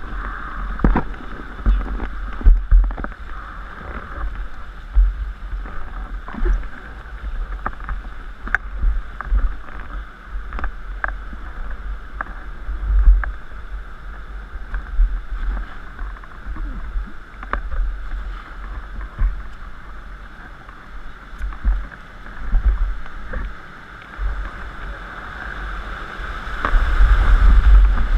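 Rushing river water and low buffeting on a camera mounted at the bow of an inflatable raft, with scattered knocks and clicks. The water grows louder near the end as the raft runs into white-water rapids.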